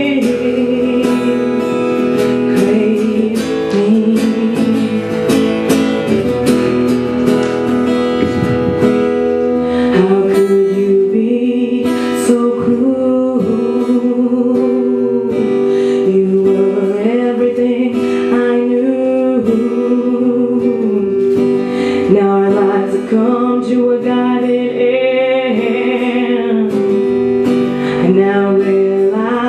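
Live music led by a strummed acoustic guitar, with a melody line weaving over the chords.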